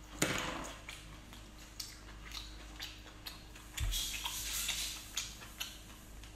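Close-miked eating sounds from a boiled lobster: scattered small clicks of shell being handled and chewed. A louder rustling burst comes just after the start, and a longer one about four seconds in.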